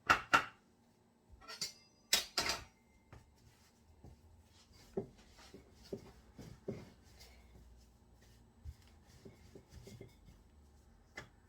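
Kitchen handling noises while samosa dough is worked: a few sharp knocks and clatters near the start and again about two seconds in, then softer scattered taps and rubbing.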